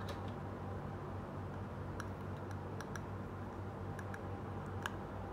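Small plastic toy pieces being handled, giving a scatter of light clicks and taps, over a steady low hum.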